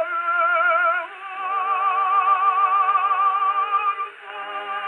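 1915 Columbia shellac record played on an HMV 103 acoustic gramophone: the closing music of the song, long held notes with a strong vibrato and no high treble. The held note shifts about a second in and briefly fades about four seconds in before the next notes.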